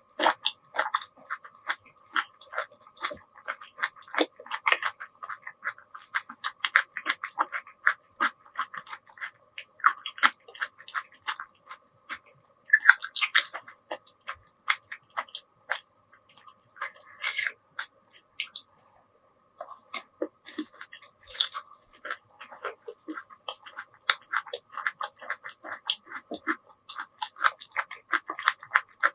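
Close-miked eating sounds: a rapid, irregular run of wet clicks and chews as spicy noodles and side dishes are eaten, with a brief pause about two-thirds of the way through. A faint steady hum runs underneath.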